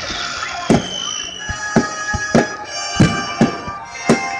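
Aerial fireworks shells bursting in quick succession, about two sharp bangs a second, over sustained music in the background.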